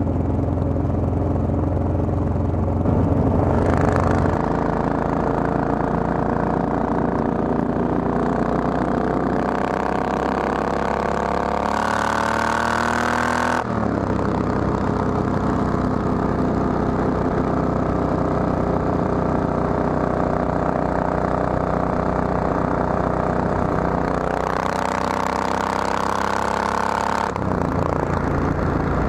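Triumph Thunderbird's parallel-twin engine heard from the rider's seat at road speed. It pulls up through the revs for several seconds, drops suddenly at an upshift about a third of the way in, then runs steadily. It climbs again briefly near the end before another drop.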